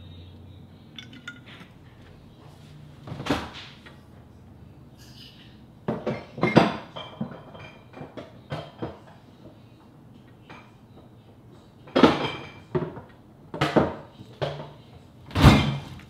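Kitchen clatter: scattered clinks and knocks of dishes and glass jars being handled, as a refrigerator door is opened and a jar of jalapeños is taken out.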